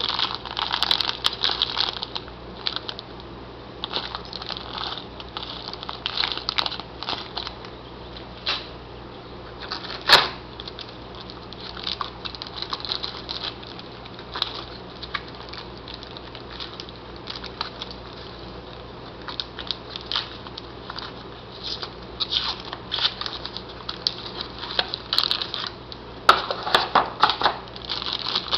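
Plastic packaging bags crinkling and rustling in irregular bursts as they are handled, with cardboard packing shifting, a sharp tap about ten seconds in and a busier stretch near the end. A faint low hum runs underneath.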